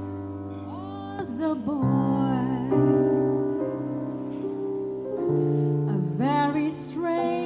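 Live jazz ballad for voice and piano: sustained piano chords, with a woman's voice coming in about a second in and singing a wavering line over them.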